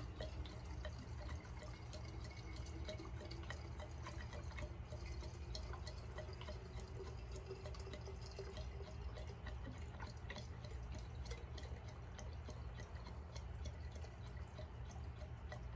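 Fuel being poured from a gas can straight into a chainsaw's fuel tank without a funnel: a faint, steady trickle with scattered small drips and ticks.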